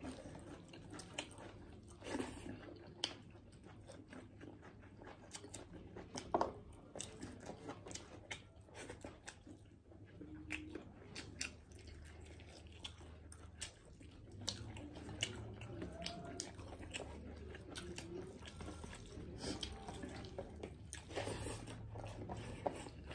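People chewing food with their mouths close to the microphone: irregular wet mouth clicks, smacks and occasional crunches, over a low steady hum.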